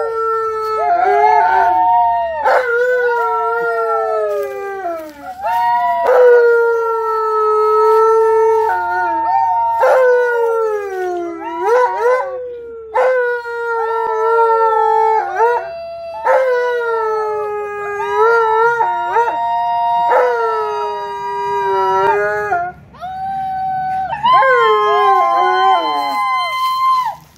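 Alaskan malamute howling, a run of long howls held on one note that fall away in pitch at the end, joined by people howling along so that two pitches often overlap.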